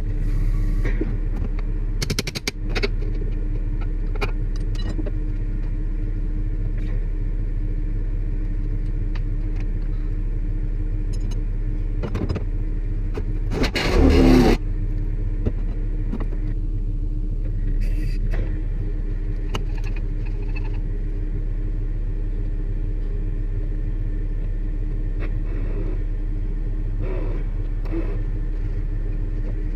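Bucket truck's engine idling steadily, with scattered metallic clinks of chain and hardware. About halfway through there is a brief louder burst.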